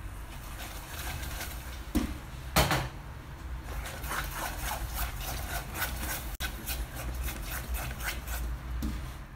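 Silicone spatula stirring and scraping a thick caramel and condensed-milk mixture around a pot in quick repeated strokes, working the hardened caramel lumps into the milk. Two knocks come about two seconds in.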